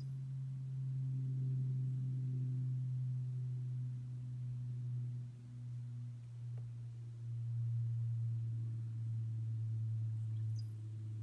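De Havilland Canada Dash 8 Q400 turboprop passing high overhead: a steady low drone from its six-bladed propellers, its pitch dropping slightly about halfway through.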